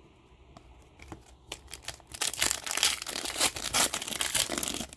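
A trading-card pack wrapper being torn open and crinkled, starting about a second and a half in and quickly growing loud, dense crackling.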